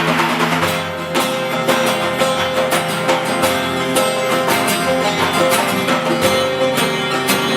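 Background music led by a plucked string instrument, played in steady rhythmic strums.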